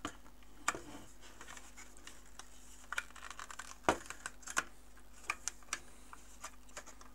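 Irregular small clicks and knocks of a thin aluminium sheet cover being handled and pressed onto an airsoft AK receiver during a test fit, the loudest knock about four seconds in.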